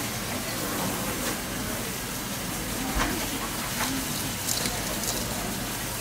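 Steady background hum with a handful of light taps and knocks, from a knife and fingers working pieces of sea snail meat on a white cutting board.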